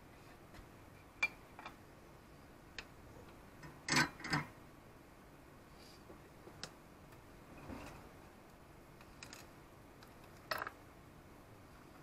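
Soldering gear, a solder spool and a brass tip-cleaner tin, being handled and set down on a workbench: scattered light clicks and knocks. The loudest are a quick pair about four seconds in and another near the end.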